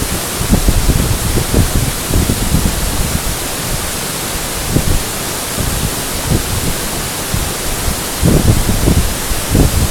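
Waterfall rushing in a steady, loud hiss, with uneven low rumbles that are heaviest near the end.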